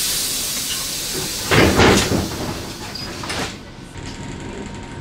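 Passenger train's pneumatic doors closing: a loud air hiss that fades, then the doors thud shut about a second and a half in, with a smaller clunk a second and a half later.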